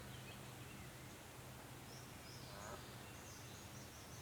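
Faint outdoor ambience: a few short, high bird chirps over a steady low hum, with one brief lower rippling call a little past halfway.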